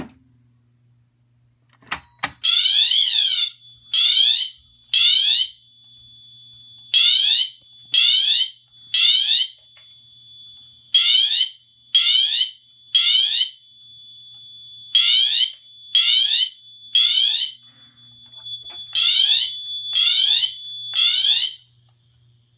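Wheelock MT-24 horn strobe on its siren tone, sounding the temporal-3 evacuation pattern: five rounds of three short, fast-sweeping siren blasts, each round followed by a pause. It comes on after a sharp click about two seconds in and cuts off shortly before the end. Really loud even at its low volume setting.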